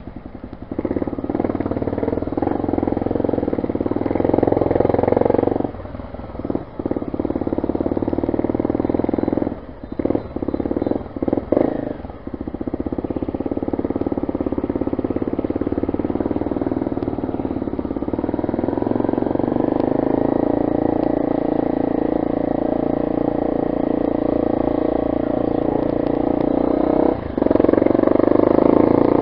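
Motorcycle engine running in slow city traffic, heard from a helmet-mounted camera. It drops off briefly several times in the first half, then pulls steadily with a slowly rising pitch.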